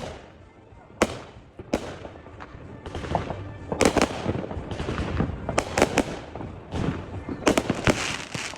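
Fireworks going off: single sharp bangs at irregular intervals, then denser clusters of bangs with crackling between them toward the middle and near the end.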